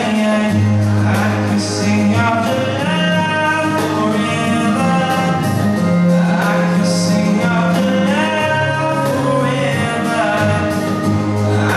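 A man singing into a handheld microphone over musical accompaniment, holding long notes over a steady bass line.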